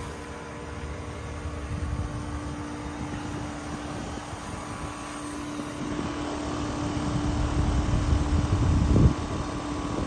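Carrier heat pump outdoor unit running: a steady hum with a constant low tone over a rumbling rush of fan air, swelling near the end and dropping suddenly about nine seconds in.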